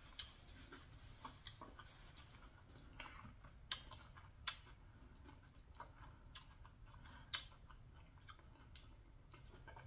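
A person chewing food with the mouth closed: quiet, scattered wet mouth clicks and smacks at irregular intervals.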